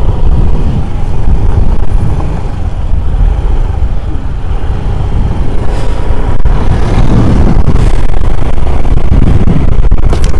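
Honda Activa 125 scooter pulling away and riding along a road, its engine running under heavy low wind noise on the microphone. The noise grows louder and steadier about halfway through as the scooter gets up to speed.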